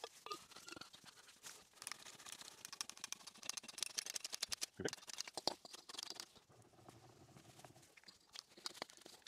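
Faint scratchy rubbing and many small clicks and knocks from a gloved hand oiling and wiping down the bed of a South Bend 9C lathe, at sped-up speed. The sound is busiest for the first two thirds and quieter near the end.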